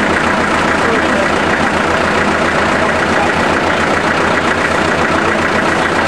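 Antique gas-start diesel engine of a sawmill idling steadily, with an even low firing beat.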